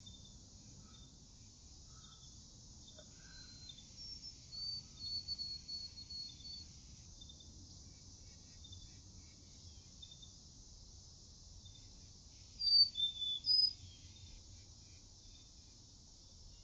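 Outdoor ambience of birds chirping: a run of short high notes about four seconds in, and a louder cluster of chirps around twelve to fourteen seconds, over a faint steady background hiss.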